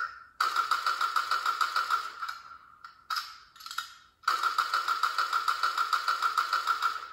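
Electronic sound effect played through the Master Chief deluxe helmet's built-in speaker: a high tone pulsing rapidly, about seven pulses a second, in three stretches with short breaks between them.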